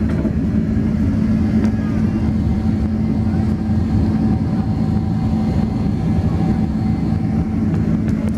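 Boeing 767-300 cabin noise during the takeoff climb, just after liftoff: the jet engines at takeoff thrust give a steady, loud low roar with a held hum.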